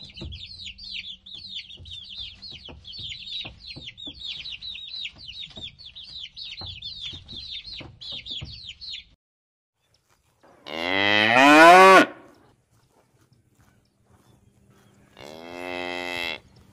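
A flock of baby chicks cheeping without pause, many short falling peeps, for about the first nine seconds. After a short gap a cow moos twice: first a loud, long moo that rises in pitch, then a shorter, quieter, steady moo near the end.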